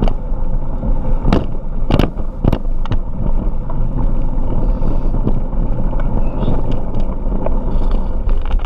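Mountain bike rolling along a dirt track: a steady rushing noise, heaviest in the low end, from the tyres and the air across the camera microphone. Four sharp knocks or rattles come in the first three seconds.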